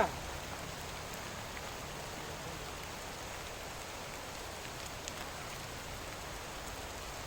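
Steady, even hiss of background noise, unchanging throughout, with no distinct events.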